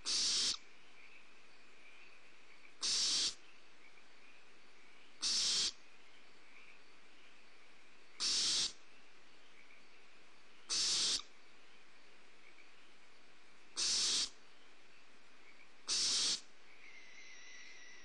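Barn owl owlets giving their hissing, rasping begging calls: seven short harsh hisses, each about half a second long, repeated every two and a half to three seconds. These are the nestlings' food-begging calls.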